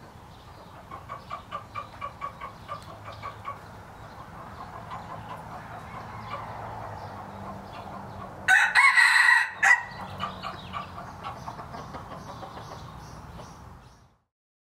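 Red junglefowl rooster crowing once, a short loud crow about a second and a half long, loudest in the middle of the stretch. Before it comes a quick run of short clucking notes, several a second, from the junglefowl in the pen.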